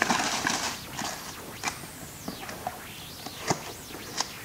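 A short rustle, then scattered footsteps and a few light knocks on a concrete floor.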